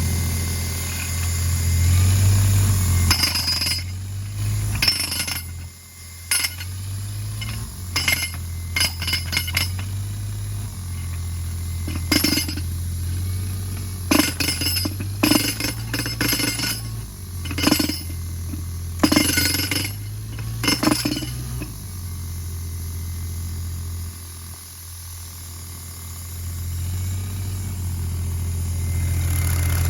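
CompAir F42 mobile compressor's engine idling with a steady low hum. Irregular sharp metallic clinks and knocks come over it for much of the time, then stop for the last several seconds.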